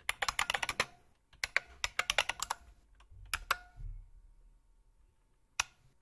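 Typing in the clicky sound of an IBM Model M buckling-spring keyboard, as imitated by the bucklespring emulator. Two quick runs of keystrokes come first, then a few more, then one lone keystroke near the end.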